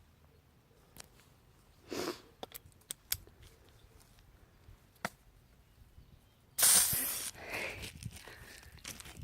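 Scattered light clicks and knocks of handling, then, about six and a half seconds in, a sudden loud rustling hiss that fades away over about two seconds.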